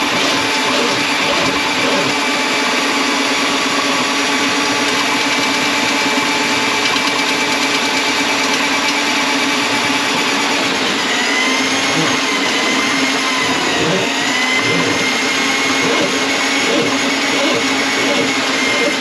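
Electric drain auger motor running continuously while clearing a grease-clogged kitchen drain line. About eleven seconds in, its pitch begins to waver up and down as the cable takes load.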